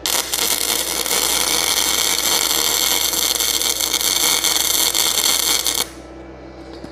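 Gasless flux-core MIG welding arc on .030 flux-core wire, a loud steady crackle for about six seconds that stops shortly before the end. The wire feed is set at 200, which the welder judges way too fast for this weld.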